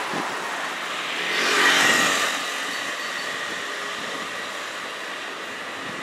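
A car passing close by, rising to its loudest about two seconds in and then fading away, over steady street background noise.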